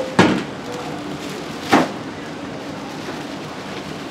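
Two loud metal clanks about a second and a half apart, from the wok and steel tray as the caramel-coated oranda puffs are emptied out and spread, over a steady background hum.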